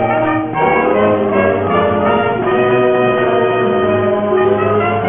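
High school marching band led by trumpets and trombones, with saxophones, clarinets and drums, playing its fight song in sustained brass chords, the parts mixed from the players' separate home recordings. There is a short break in the sound about half a second in before the band plays on.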